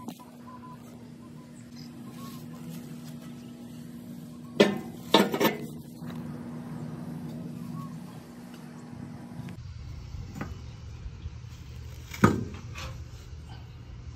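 An iron fireguard knocking against the ground as it is set down over a fire starter: two sharp knocks close together about five seconds in and another near the end, over a steady low hum.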